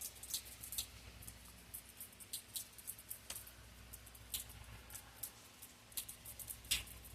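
Raindrops tapping on a hard surface close to the microphone: irregular sharp ticks, a few a second, over a faint steady low hum.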